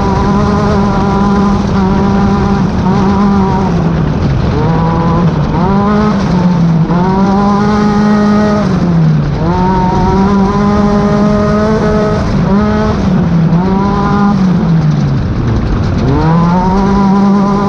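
Class 10 off-road race car's engine running hard at high revs, dropping briefly about six times as the driver lifts or shifts and climbing straight back up each time.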